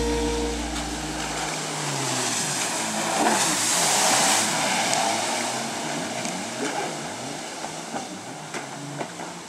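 Jet ski engine running as the craft circles and passes close by, its pitch rising and falling again and again, with a loud rush of water spray about three to four seconds in.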